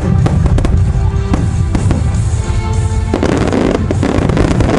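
Fireworks bursting in quick succession with sharp bangs and pops, then a dense crackle about three seconds in, with music playing underneath.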